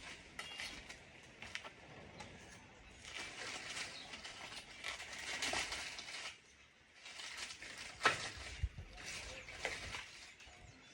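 Dry leaves and twigs rustling and crunching as they are handled, with scattered small clicks and one sharper snap about eight seconds in.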